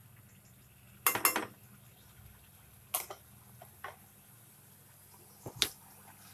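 A spoon knocking and clinking against a kadai while stirring tomato purée: a quick double clatter about a second in, then single knocks near three and four seconds and a sharper one near the end.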